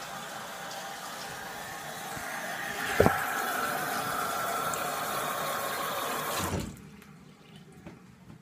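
Water running from a tap, with a sharp thump about three seconds in, then shut off abruptly about six and a half seconds in.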